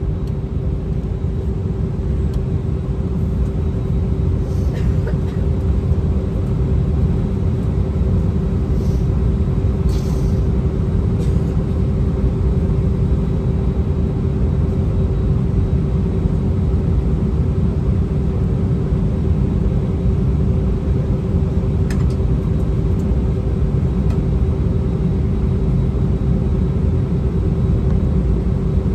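Steady low rumble and a constant hum inside the cabin of an Airbus A319 on the ground before takeoff, engines running, with a few faint ticks.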